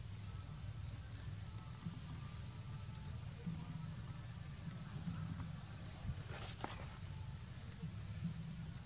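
Outdoor ambience: a steady low rumble under a thin, steady high-pitched whine, with one sharp click about six and a half seconds in.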